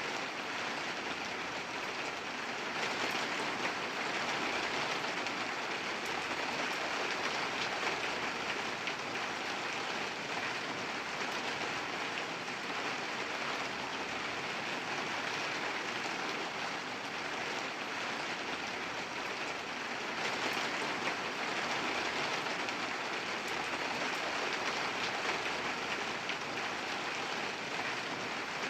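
Steady rain falling, a dense even hiss with fine pattering drops.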